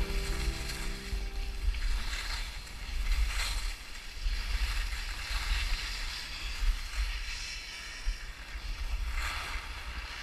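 Wind buffeting the microphone of a body-mounted camera while skiing downhill, a constant low rumble, with several hissing swishes of skis turning on crusty snow. Background music fades out about a second in.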